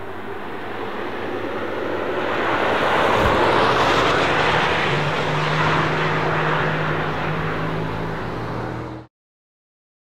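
Rimac Nevera electric hypercar passing at speed, mostly tyre and wind noise with no engine note. It swells to its loudest a few seconds in, then fades as the car pulls away, and cuts off suddenly near the end.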